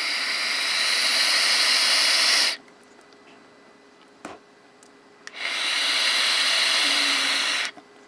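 Geek Vape Aegis Boost pod mod's airflow hissing as air is drawn through it, twice, each draw about two and a half seconds long with a pause between. The hiss is the airflow noise of the atomizer on a tight air setting, which the reviewer finds noisy.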